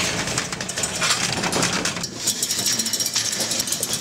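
Steel roll-up door being raised by its hand chain: a steady metallic rattle of the door slats with clinking chain links.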